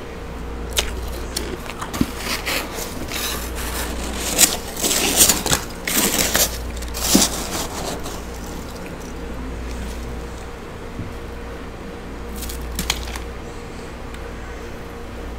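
Thick frost in a chest deep freezer being scraped and broken up with a plastic scraper and a gloved hand: a run of crisp crunches and scrapes, loudest between about four and eight seconds in, with two more shortly before the end, over a steady low hum.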